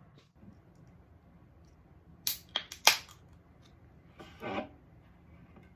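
A few sharp clicks and knocks, the loudest about three seconds in, then a beer-style can of carbonated drink opened by its pull tab, giving a short hiss about four and a half seconds in.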